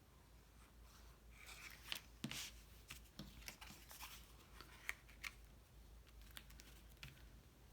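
Faint rustling and scattered light clicks of card stock being handled as glue is put on its tabs and the pieces pressed together.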